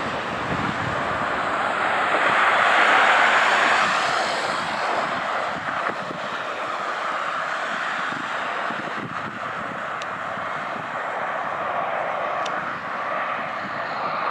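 Airbus A321 jet engines on final approach with the landing gear down: a steady rushing jet noise, loudest a few seconds in, then holding a little lower.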